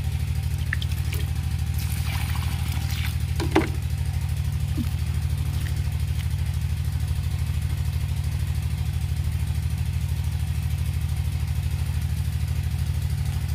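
Motor pump engine running with a steady low drone. A few faint scrapes and one short click a little over three seconds in come from hands working water into loose soil to make mud.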